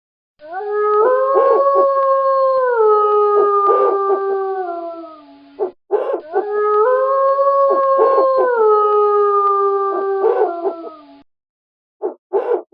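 Wolf howling: two long howls of about five seconds each, each holding a steady note and then falling away in pitch, with short sharper calls breaking in over them and a few more short calls near the end.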